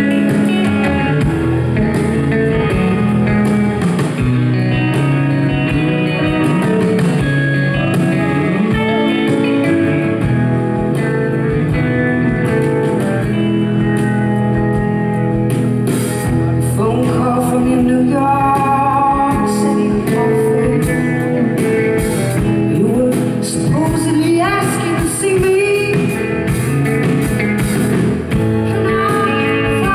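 Live rock band playing a slow song with electric guitar, keyboard and drums, a woman singing over it in places.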